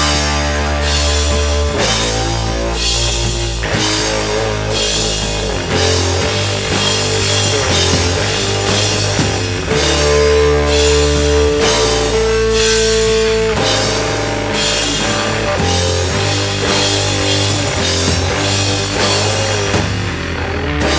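Rock band playing with drum kit, bass and electric guitar. There is a steady drum beat under sustained bass notes, and a guitar holds one long note from about halfway through.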